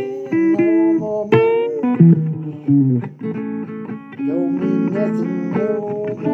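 Blues guitar music: an instrumental passage of plucked notes, some of them bent in pitch.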